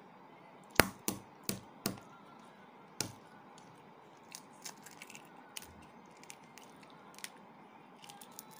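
Boiled duck egg shell cracked with five sharp taps in the first three seconds, then small faint crackles and clicks as bits of shell are picked off by hand.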